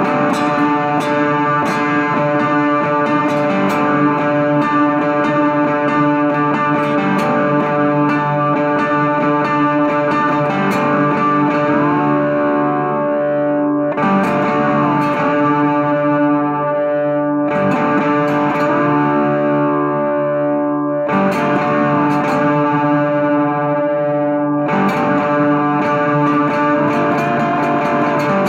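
Three-string electric canjo with a coffee-can body, played amplified: a droning riff of ringing notes with sliding pitches, repeated in phrases about every three and a half seconds.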